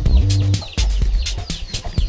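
Background music mixed with chickens clucking.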